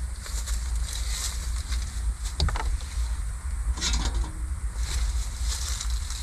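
Wind buffeting the microphone as a choppy low rumble, with a few brief rustling or handling noises around the middle.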